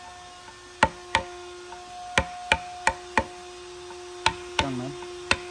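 Wooden mallet striking the handle of a carving chisel cutting into a wood sculpture: about nine sharp knocks at an uneven pace, often in pairs. A faint steady hum sits underneath, and a brief falling-pitched sound comes near the end.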